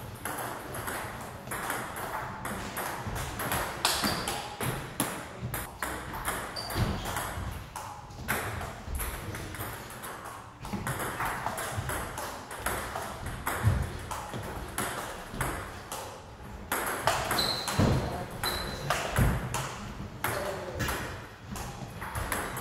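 Table tennis ball clicking off the paddles and the table in back-and-forth rallies, many short sharp ticks in quick, irregular succession.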